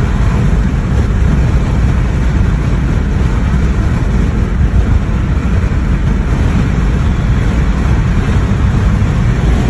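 Steady road and engine noise of a car cruising at highway speed, heard from inside the cabin as a loud, even low rumble.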